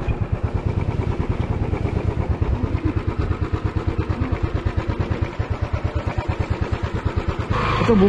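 Motorcycle engine running at low revs, ticking over with an even, rapid beat. A voice starts near the end.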